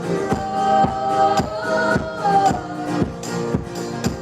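Live band playing a short instrumental passage of a pop-folk song, with a steady percussive beat under held, shifting melodic notes.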